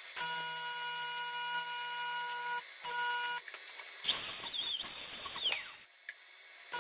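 AC TIG welding arc on aluminium buzzing steadily for about two and a half seconds, then once more briefly after a short break. About four seconds in comes a louder hiss carrying a wavering whistle that falls away after about a second and a half.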